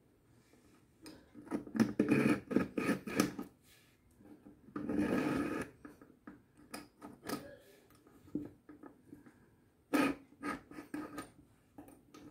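Kitchen knife blade drawn repeatedly through a handheld two-wheel Surmene knife sharpener: runs of short grinding scrapes of steel against the sharpening wheels, with one longer stroke about five seconds in and short pauses between the runs.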